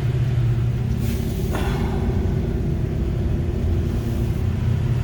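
Fuel-injected 302 HO V8 with stainless headers and Flowmaster mufflers idling steadily. A short hiss comes in about a second in.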